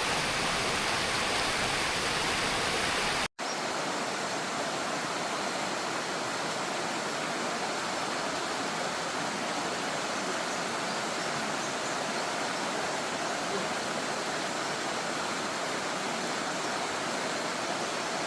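Steady rush of a flowing jungle river. About three seconds in the sound cuts out for an instant, then carries on with less low rumble.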